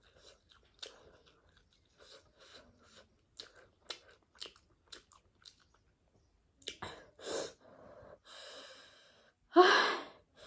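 Close-up chewing of crunchy spicy chatpate, many small crisp crunches in a steady run. Near the end come several louder, breathy bursts of air, a sharp reaction to the chili heat.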